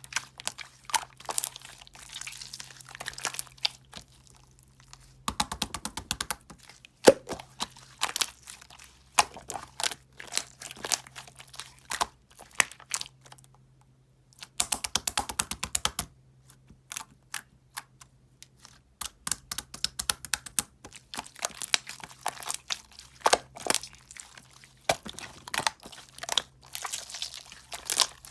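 Soothing-gel slime being squeezed and worked by hand, giving sticky crackling clicks and pops. Twice, about five seconds in and again past the middle, it breaks into a run of rapid, even clicking.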